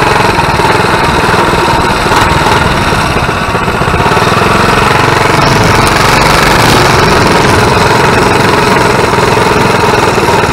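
Coleman mini bike's small single-cylinder, lawnmower-type engine running steadily under way, loud and raspy.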